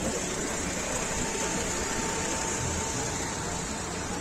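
Steady outdoor background noise: an even rumble and hiss with no distinct event, and a faint steady tone for a couple of seconds in the middle.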